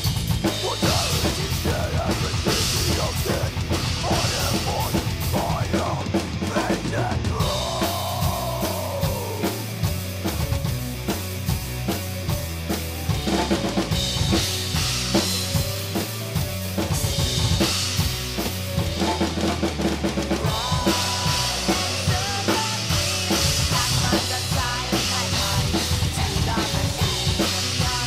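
Metal drumming on a Pearl Masters MCX drum kit with Soultone cymbals: rapid double bass drum strokes under snare hits and stretches of cymbal wash, played along with the band's recorded death/doom metal track with guitars and keyboards.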